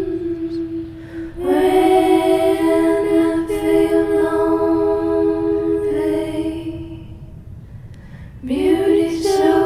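Music: singing voices holding long, drawn-out notes with little or no accompaniment, in two long phrases with a short break about three-quarters of the way through.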